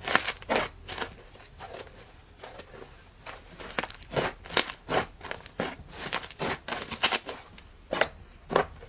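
Slime being mixed with clay and worked by hand, giving irregular crisp clicks and crackles, a few a second.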